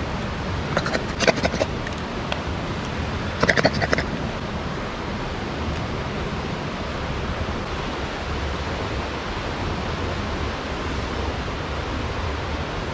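River water running steadily over rocks, an even rushing hiss. In the first four seconds a few short knocks and clatters as a tin of baked beans and sausages is emptied into a camping pot.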